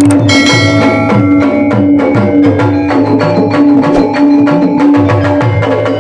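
Sundanese gamelan ensemble playing: a dense run of struck metallophone notes and drum strokes over a held, ringing low gong tone, with one bright ringing metallic strike about a third of a second in.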